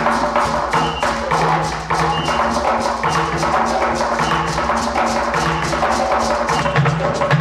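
Fast percussion music for a traditional dance, led by a hand drum, with a steady driving beat and short repeated low notes.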